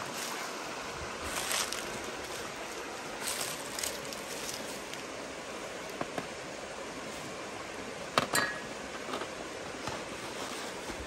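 Food-preparation handling noises: a few sharp clinks and knocks from small bowls on a metal tray and ingredients going into a plastic basin, the loudest a little past the middle, over a steady outdoor hiss.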